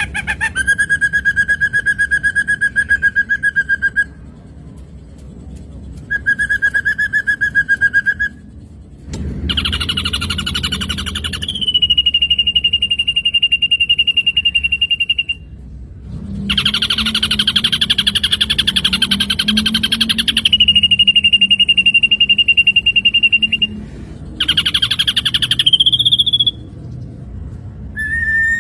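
Ashy drongo singing a series of long, rapidly pulsed whistled phrases. Two level lower phrases come first, then higher buzzy trills that each settle into a steady high whistle, and a short phrase comes near the end.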